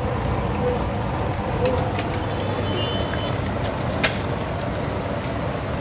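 Steady low rumble of a working street-food kitchen, with a few light clicks and one sharp tap about four seconds in.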